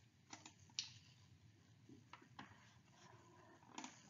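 A few faint, scattered clicks of computer keys or buttons, the clearest about a second in, made while trying to step back to an earlier presentation slide; otherwise near silence.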